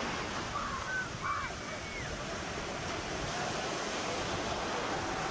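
Ocean surf washing on the shore, with wind buffeting the camcorder microphone. A few faint, short high calls come through about a second in.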